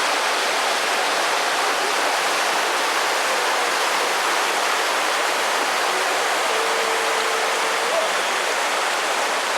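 Rushing water, a steady, even rush without a break. A faint held tone sounds briefly over it about seven seconds in.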